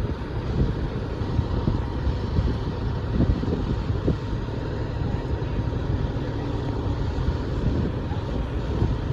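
Fire truck engine running: a steady low rumble with no pauses.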